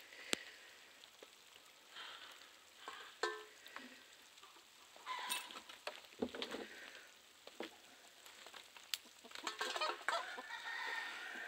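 Faint chickens clucking now and then, with a longer rooster crow near the end.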